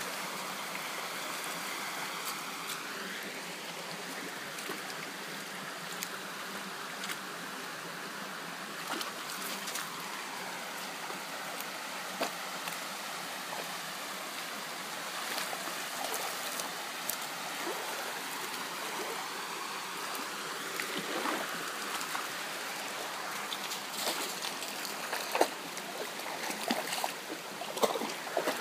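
Shallow rocky stream and a small cascade running, a steady rush of water. A few brief, louder splashes come near the end as a dog wades through the water.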